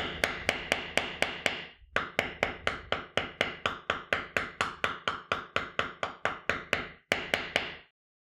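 Mallet repeatedly striking a metal snap-setting tool, about five sharp taps a second, with a short break about two seconds in and another near the end, setting a snap stud into a leather strap on an anvil.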